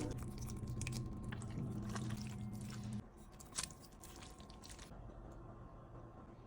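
Soft wet squishing and light clicks of creamy sauced spaghetti being handled, with one sharper click about three and a half seconds in. A low steady hum runs under the first three seconds and then cuts off.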